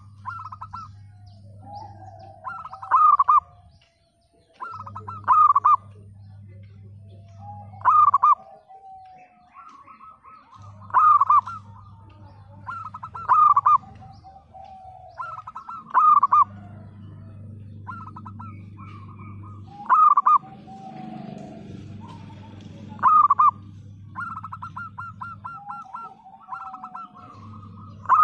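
Zebra dove (perkutut) cooing: a loud cluster of rapid staccato coos every two to four seconds, with softer trilling coos in between. A faint low hum comes and goes under the calls.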